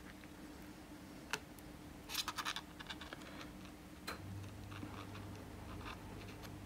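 Faint, scattered clicks and ticks from handling an opened iPhone 7 Plus as its loose display module is swung open from the frame, with a cluster of clicks about two seconds in. A faint low hum comes in at about four seconds.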